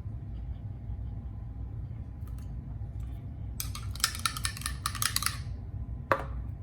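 Kitchen handling sounds while the fish is being marinated: a few light clicks, then a dense run of crackling for nearly two seconds about halfway through, and a sharp click near the end, over a steady low hum.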